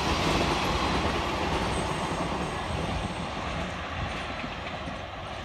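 Double-stack container freight train wagons rolling along the rails, a steady rumble that fades as the tail of the train moves away.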